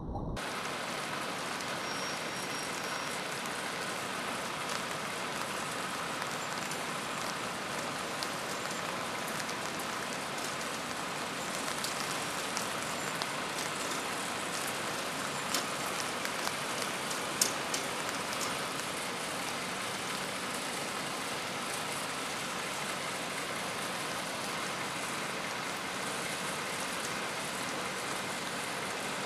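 Steady rain falling in a thunderstorm, an even hiss, with a few sharp ticks of drops hitting something close in the middle, the loudest about two-thirds of the way through.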